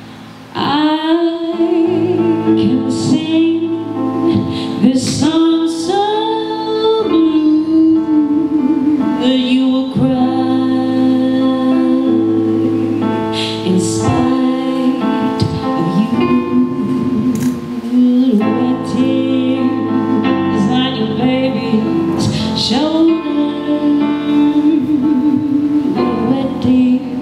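A woman sings a slow song solo into a microphone over piano accompaniment, holding long sustained notes.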